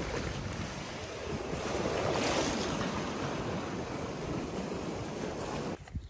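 Sea surf washing over rocks, a steady rushing wash with wind on the microphone, swelling a little about two seconds in and cutting off suddenly near the end.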